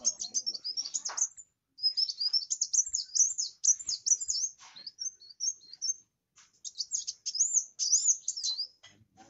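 Kolibri wulung sunbird singing energetically: fast runs of thin, high, squeaky twittering notes that sweep up and down, broken by two short pauses.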